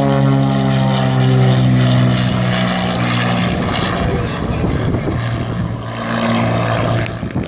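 Loud propeller drone of a turboprop aircraft, its pitch sinking slightly over the first few seconds and then holding steady.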